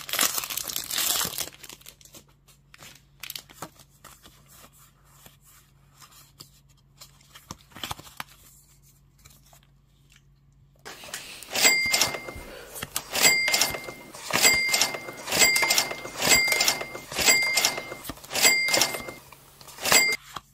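Foil booster-pack wrapper crinkling and tearing for the first second or so, then quiet rustling and clicking of cards being handled. From about eleven seconds in, a short beep-like tone over a noisy hit repeats about eight times, roughly once a second.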